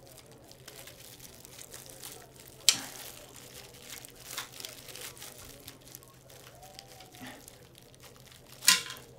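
A hand rummaging through a glass jar of cellophane-wrapped hard candies: wrappers crinkling and rustling throughout, with three sharp clicks, about a third of the way in, near the middle and near the end.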